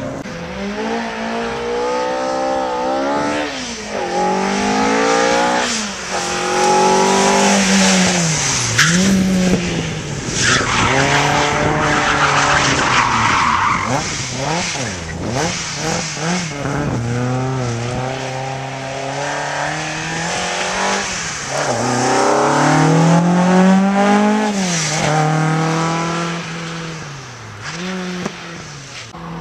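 Rally car engine revving hard through the gears, its pitch climbing and dropping back at each shift and lift, over and over. Tyres squeal and skid, with a long squeal about ten seconds in.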